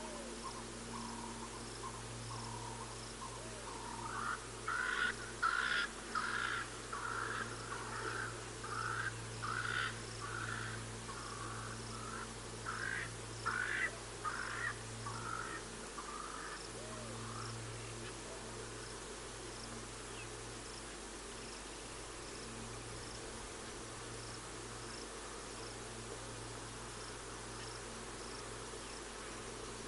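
A bird calls in a run of loud repeated notes, about two a second, from about four seconds in until about sixteen seconds. Under it, insects chirp steadily and a low hum runs throughout.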